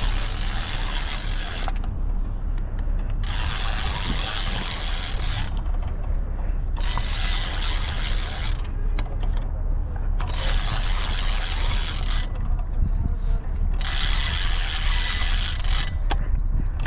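Spinning reel cranked in spells of two to three seconds with short pauses between, its gears whirring, as line is wound in on a hooked queenfish. Steady low wind rumble on the microphone.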